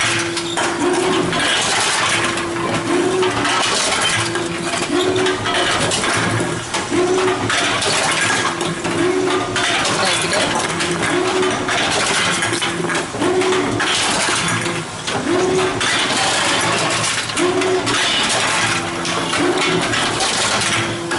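Tomra reverse vending machine taking in returned cans, with metallic clattering throughout and a short low hooting tone that repeats about every two seconds.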